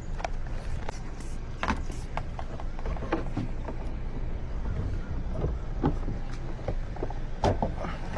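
Scattered clicks and light knocks of a locksmith's tools working a locked truck door open, over a steady low rumble.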